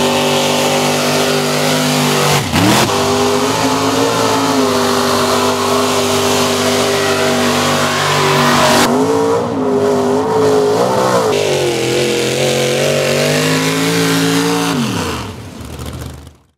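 Mud trucks' engines held at high revs, near full throttle, while driving through a mud pit: a steady, loud engine drone that dips briefly about two and a half seconds in and wavers in pitch around the middle. Near the end the revs fall away and the sound fades out.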